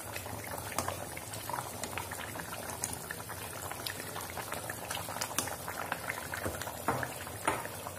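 Thick spinach purée for palak paneer boiling in a kadai, bubbling steadily with many small pops and a couple of sharper clicks near the end.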